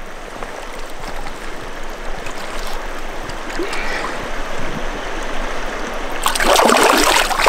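Shallow mountain river running over stones, a steady rush of water. Near the end comes louder splashing in the water close by.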